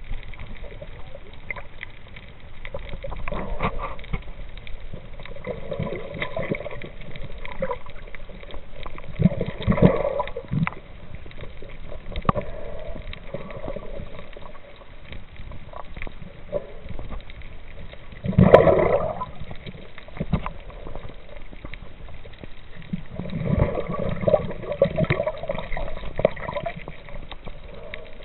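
Water noise picked up by a camera held underwater, with scattered clicks throughout. It swells louder several times: around ten seconds in, most strongly just past halfway, and again near the end.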